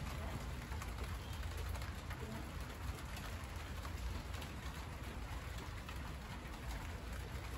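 Rain falling on monstera leaves: a dense patter of drops over a steady low rumble, with a bird calling now and then.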